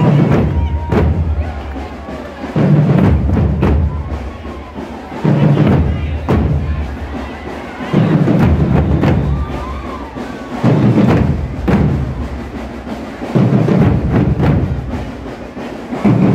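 Marching band bass drums struck together in a slow, regular beat: a loud heavy hit about every 2.7 seconds, each followed by lighter drum strokes.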